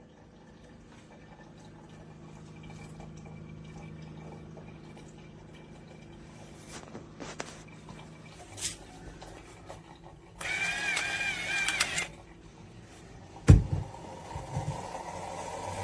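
Small electric pepper or salt grinder motor whining for about a second and a half, its pitch wavering slightly as it grinds, followed a couple of seconds later by a single loud thump. Faint clicks and handling before it.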